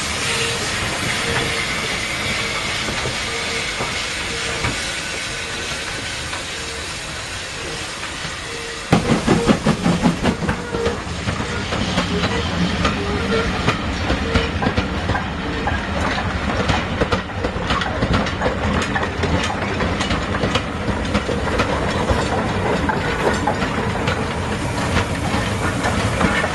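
Steam train: a steady hiss of steam as the locomotive pulls away, then, from about nine seconds in, a train passing close by with its wheels clicking and clattering over the rail joints.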